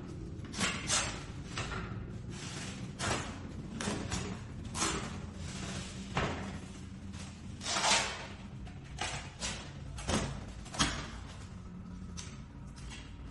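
A dozen or so irregular knocks and short scraping sounds from hand work, spaced unevenly, over a steady low hum.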